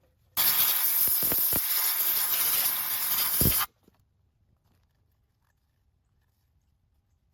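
Aerosol can of spray lube spraying in one continuous hiss for about three seconds, applied to loosen rust on locking hub parts. It cuts off sharply.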